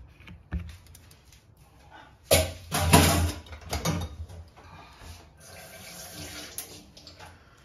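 Water running from a kitchen tap into a sink: a strong flow about two seconds in, then a lighter steady flow that stops shortly before the end.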